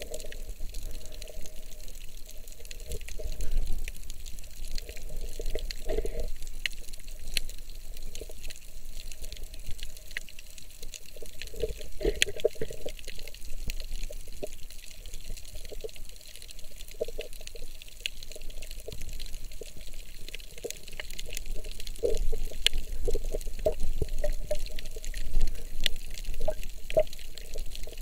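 Muffled underwater sound from a submerged camera: water moving against the housing, with irregular gurgling surges and many faint scattered clicks, a little louder near the end.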